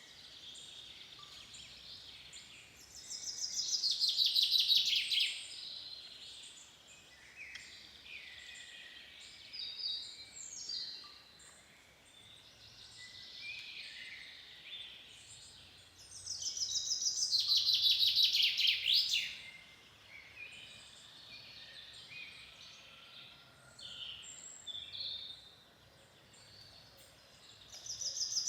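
Forest songbirds singing, with many short chirps and calls throughout. Twice, a louder song of rapid repeated notes falling in pitch lasts about two to three seconds, and it begins again near the end.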